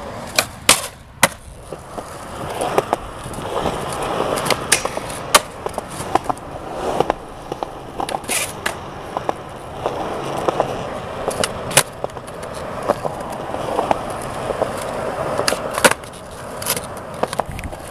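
Skateboard wheels rolling on concrete, the rolling noise swelling and fading. Sharp clacks of the board popping and landing cut in a dozen or so times.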